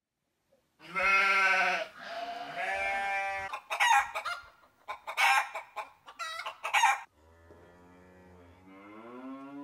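A rooster crowing in two long calls, then a run of short, sharp clucking calls, then a fainter drawn-out call rising in pitch.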